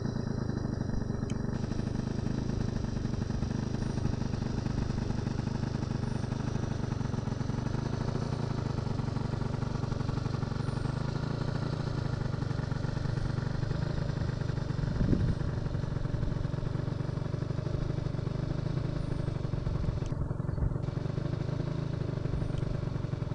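Moped engine idling steadily with a low, even hum.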